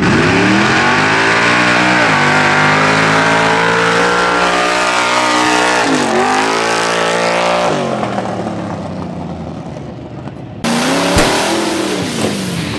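Lifted square-body Chevrolet truck's engine revving hard under load as it drags a tractor tire. Its pitch climbs, drops sharply about two seconds in, holds high, dips and climbs again around six seconds, then fades. Near the end a second loud burst of revving rises and falls.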